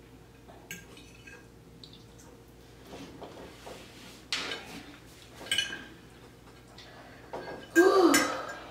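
Soft clinks and scrapes of utensils against dishes while eating, with two sharper clatters in the middle.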